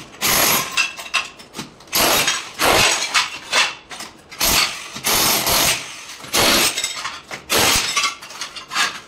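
Electric demolition hammer chiselling up ceramic floor tiles in a run of short bursts, each under a second with brief pauses between, the tile cracking and breaking under the bit.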